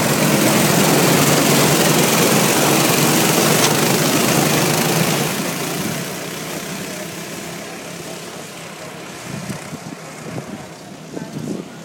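Go-kart engine running at high revs as the kart passes close by, loud for about five seconds, then fading as it pulls away. The engines of other karts go on more faintly in the distance.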